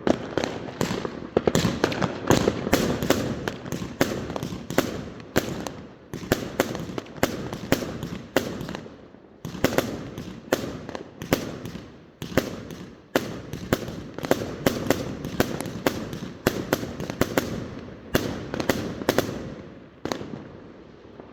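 New Year's Eve fireworks going off: a dense, irregular run of bangs, several a second, with rumbling echo between them.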